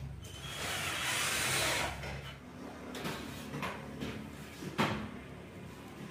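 A long PVC ceiling plank scraping as it is slid along the ceiling frame, followed by a few sharp plastic knocks as it is pushed into place against the neighbouring plank.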